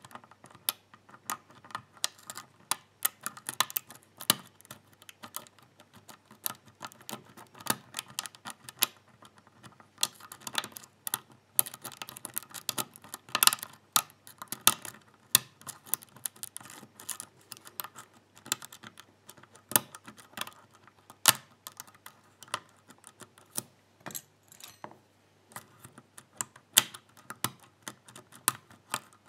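Hook pick working the pins of a Schlage Everest pin-tumbler cylinder under a tension wrench: dense, irregular small metallic clicks and ticks.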